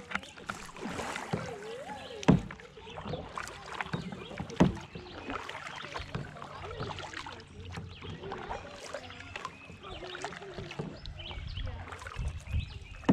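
Kayak paddling: a double-bladed paddle dipping and splashing in slow river water, with small irregular knocks and drips throughout. Two sharp, louder knocks stand out about two seconds and four and a half seconds in.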